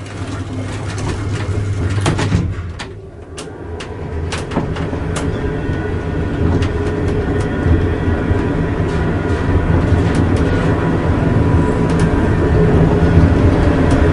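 A lift travelling upward: a steady low hum from the drive with scattered clicks and rattles from the car, dipping briefly about three seconds in and then growing gradually louder.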